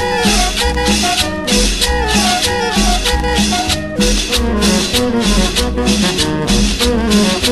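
Latin dance music with a steady bass beat, playing an instrumental stretch without singing.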